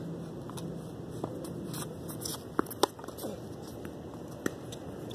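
Tennis ball struck by rackets and bouncing on a hard court: a few sharp pops, two in quick succession about two and a half seconds in and another near the end, over steady background noise.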